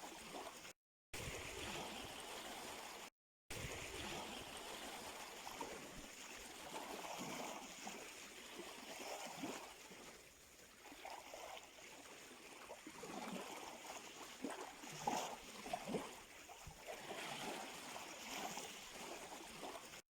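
Sea water washing and gurgling at the shoreline, a faint steady rush with many small splashes. The sound cuts out completely twice for a moment within the first few seconds.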